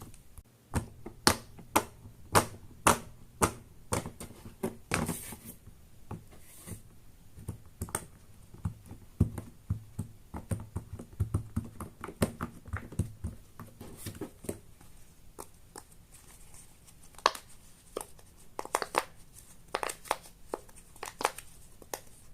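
Silicone pop-it fidget toy bubbles being pressed through, a string of sharp little pops at an uneven pace, sometimes in quick bunches.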